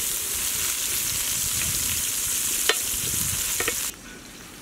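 Sliced onions sizzling loudly in hot oil in an aluminium pot, stirred with a wooden spatula that knocks against the pot a few times. The sizzle drops sharply near the end.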